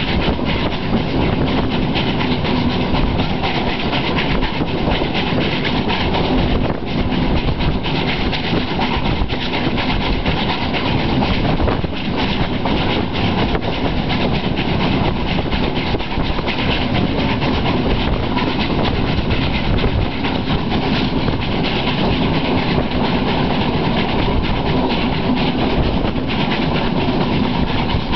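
Steam-hauled train running at speed, heard from an open carriage window: a steady rush of wheels on rail with clickety-clack and wind.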